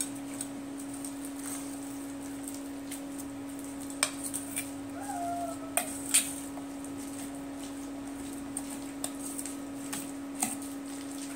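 Steel spoon stirring and scraping a mashed potato and onion stuffing in a stainless steel bowl, with scattered clinks of metal on metal, the sharpest about four and six seconds in. A steady low hum runs underneath.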